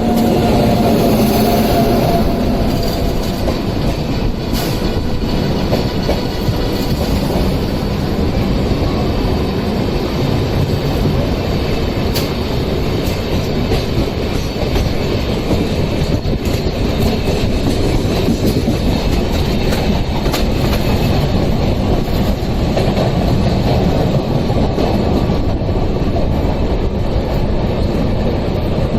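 Electric-hauled Rajdhani Express passenger train running through a station at speed: a steady, loud rumble of wheels on rail, with scattered sharp clicks as the wheels cross rail joints. A held tone sounds over the rumble in the first couple of seconds.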